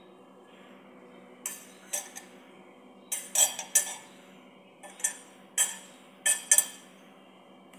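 Spoon clinking and tapping against kitchen bowls while ingredients are measured out: about eight sharp, ringing clinks in irregular clusters, starting about a second and a half in.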